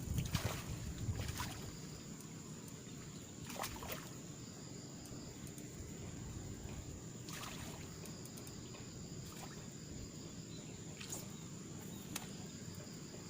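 Steady outdoor ambience with a thin, even, high-pitched insect drone and a few scattered light clicks.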